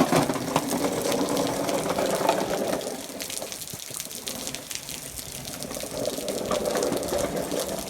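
Rain and running water: a steady rush of water, a little louder in the first few seconds, with many small drop ticks through it.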